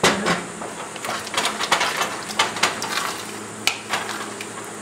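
A spoon scraping and knocking against a pot as risotto is stirred, with grated parmesan and butter being worked into the rice. The clicks and scrapes come irregularly, several a second.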